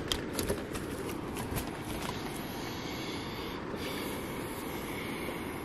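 Steady low wind rumble on an open lakeside, with a few light clicks in the first two seconds as fishing rod and line are handled.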